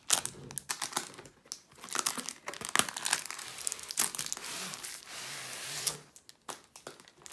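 Crinkling plastic wrap and scraping cardboard as a rolled canvas in a cellophane sleeve is worked out of a tightly packed cardboard box. The rustling is dense and crackly for about six seconds, then dies down.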